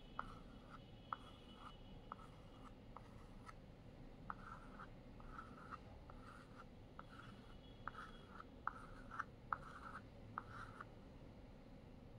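Chalk scratching faintly on a blackboard in short, quick strokes as small circles are drawn, each stroke opening with a light tap of the chalk tip. The strokes come in runs with short pauses and stop about a second before the end.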